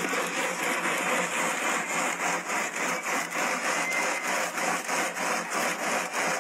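Wooden paddle scraping and working the freezing nieve mixture against the inside of a metal garrafa set in ice: a steady run of quick, repeated rasps. The mix is thickening toward sorbet.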